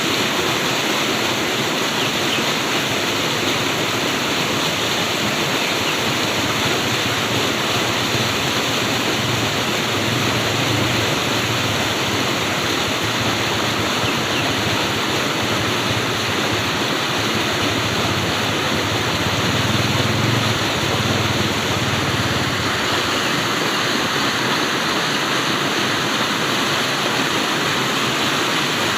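Flowing water rushing steadily, a dense even noise, with a slight low rumble swelling briefly twice, about ten and twenty seconds in.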